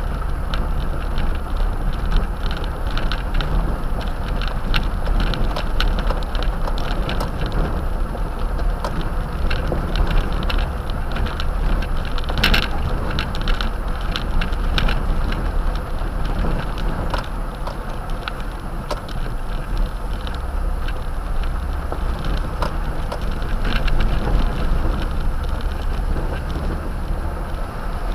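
Toyota Tundra pickup driving on a rough gravel dirt road, heard from inside the cab: a steady low rumble of tyres and engine, with frequent small clicks and rattles from gravel and the cabin, one sharper knock about twelve seconds in.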